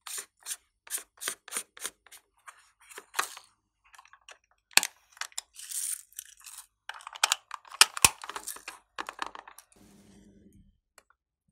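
Hard plastic container being handled and opened: a quick run of sharp clicks and taps, then rattling as sequins are shaken out of it onto slime, with a couple of louder cracks.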